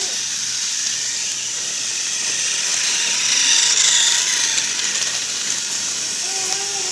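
A motorized TrackMaster toy train's small electric motor and gears whirring steadily as it runs along plastic track, growing louder about halfway through as it passes closest.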